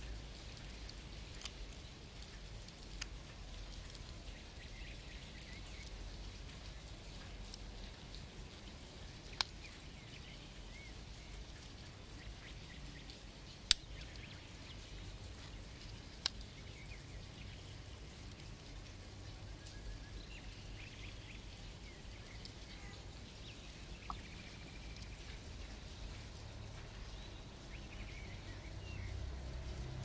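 A few sharp metallic clicks, about six spread out with the loudest about halfway, as the tools of a Victorinox Swiss Champ pocket knife snap open and shut on their backsprings, over faint steady background noise.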